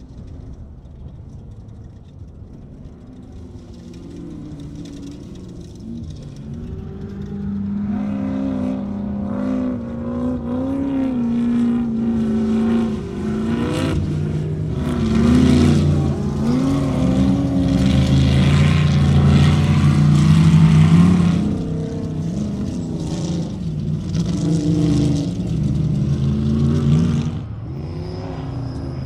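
Ultra4 off-road race car engines revving and running as the cars drive past over rough desert ground. The pitch rises and falls with the throttle. The sound builds to its loudest as a car passes close about halfway through, then drops off abruptly near the end.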